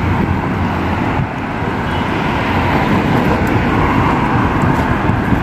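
Steady rushing ride noise from a moving scooter: wind on the microphone and wheels rolling on the pavement, a dense low rumble with no clear engine note.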